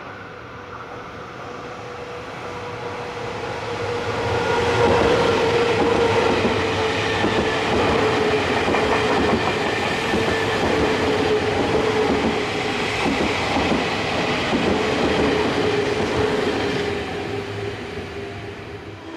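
A Nankai Koya Line electric train going past at the platform. It grows louder over the first five seconds and stays loud, with a steady whine that slowly falls a little in pitch.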